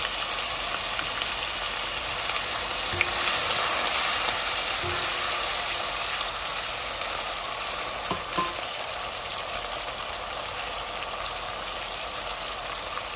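Sliced onions sizzling in hot oil in a pan, a steady frying hiss that eases a little in the second half. A few faint knocks as a silicone spatula stirs them.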